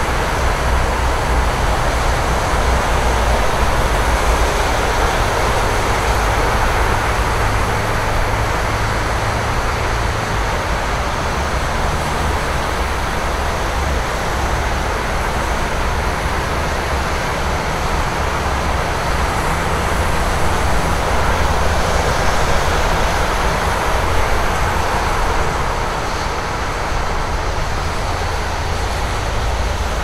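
Steady traffic on a wet road: a continuous hiss of tyres on wet pavement over a low rumble of passing engines.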